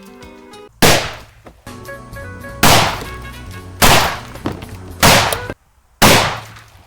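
Five shotgun shots, about one to two seconds apart, each a sharp blast that dies away quickly, over background music.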